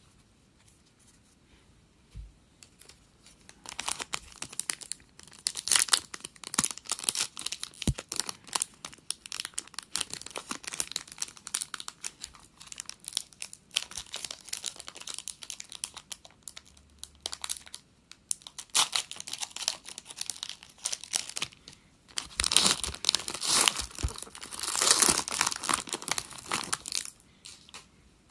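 Foil wrapper of an Upper Deck hockey card pack being torn open and crinkled by hand in irregular bursts, loudest near the end.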